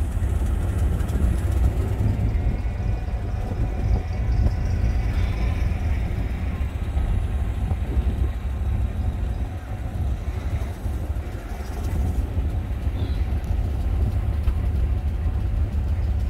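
Steady low rumble of a vehicle driving slowly along a street, engine and road noise heard from inside it.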